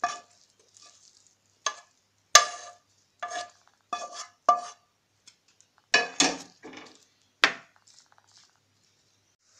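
A spatula knocking and scraping against a frying pan and a plate as cooked potato stuffing is emptied out and spread. It gives a dozen or so sharp, irregular clinks, each with a brief ring, that stop shortly before the end.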